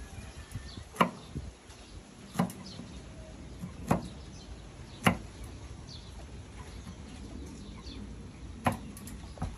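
Large kitchen knife chopping small green pods on a round wooden log chopping board: about five sharp knocks of the blade on the wood, spaced unevenly, the loudest about a second in and about five seconds in.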